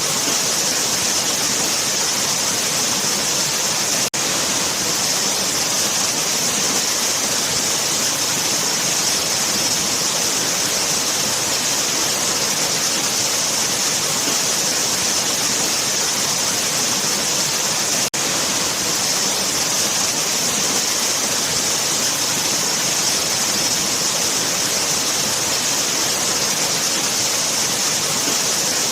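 Waterfall: a steady rush of falling water with a bright hiss. There are two momentary dropouts, about four and eighteen seconds in.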